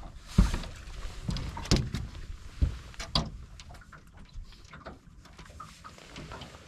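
Knocks and thumps of gear being handled on a fishing boat: four sharp knocks in the first half, with rustling and small clicks in between that grow quieter toward the end.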